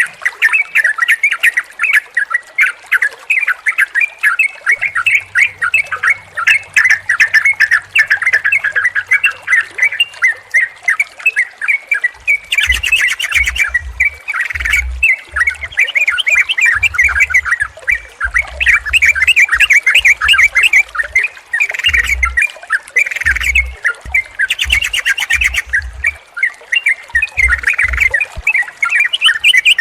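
Several yellow-vented bulbuls (trucukan) calling together in a dense, unbroken medley of short bubbly chattering notes. A few spells of faster, higher notes break in now and then.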